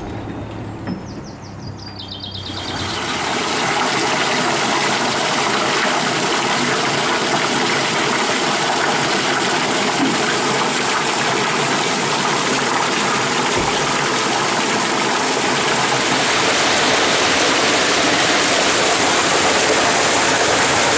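Loud, steady rush of water in the water-ballast system of a water-balanced cliff railway car, starting about two and a half seconds in. Before it, a quieter low hum and a few short high chirps.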